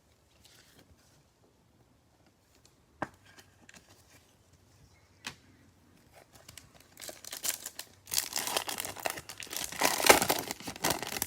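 Trading card pack wrapper being torn open and crinkled. After two light clicks, the crinkling starts about halfway through and grows louder toward the end.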